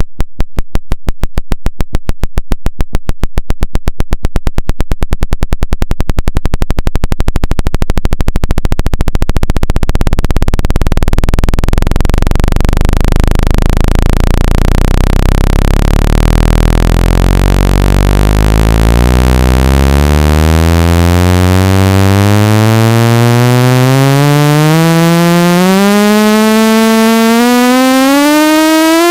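Synthetic speaker-cleaning tone for ejecting water from a phone speaker. It starts as a train of rapid clicking pulses that speeds up into a low buzz, then climbs steadily in pitch, in small steps, through the second half.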